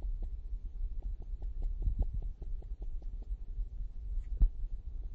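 Low rumbling hum with a run of small, quick, evenly spaced clicks, about five a second, that stop after about three seconds, then one sharper click about four seconds in.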